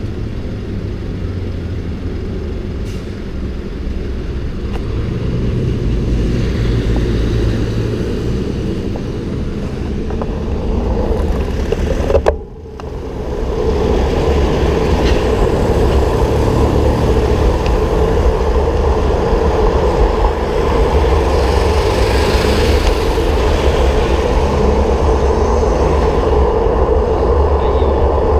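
Steady rumble of riding on the road: wind and vehicle noise, dropping sharply for a moment about halfway, then coming back with a stronger hum.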